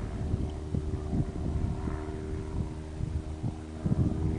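Wind buffeting the microphone in uneven gusts, over a steady low hum.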